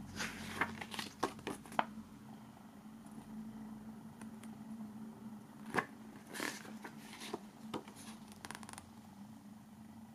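Pages of a small paper CD booklet being turned and handled: quick paper rustles and flicks in two spells, one in the first two seconds and one from about six to nine seconds in, over a faint steady hum.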